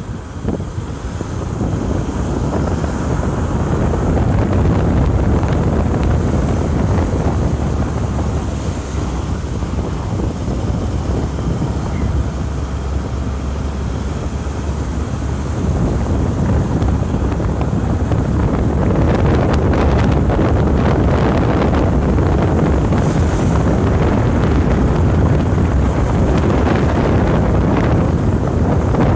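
Wind buffeting the microphone over the steady road noise of a moving car. It grows louder a couple of seconds in and again past the middle.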